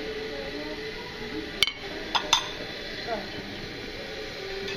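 Crockery and serving utensils clinking at a buffet: one sharp clink a little over a second and a half in, then two more close together about half a second later, over a murmur of voices.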